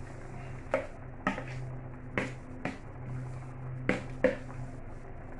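A metal spoon knocking against a plastic bowl as chili leaves are scraped out into a pan of soup: six sharp taps, roughly in three pairs, over a steady low hum.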